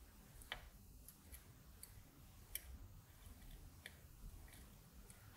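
Near silence with a handful of faint, sharp little clicks and ticks, scattered and irregular, from hand-soldering capacitor leads on a circuit board with a soldering iron and solder wire.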